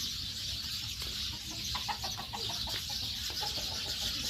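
A chicken clucking in a quick run of short notes through the middle, over a steady high hiss.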